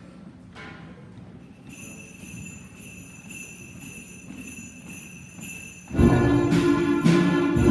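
Sleigh bells jingling steadily and fairly softly. About six seconds in, the school band comes in loudly, with the bells keeping an even beat over it.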